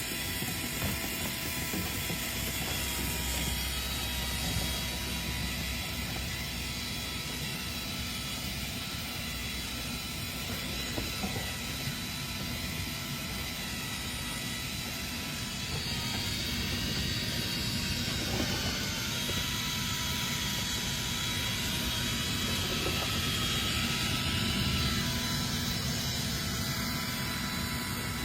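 Dryer vent cleaning power tools running steadily in the duct: a continuous motor whine with several steady tones over a rushing noise.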